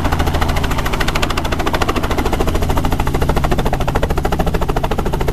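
Small piston helicopter hovering low, its two-bladed main rotor beating in a rapid, even chop over a steady engine hum.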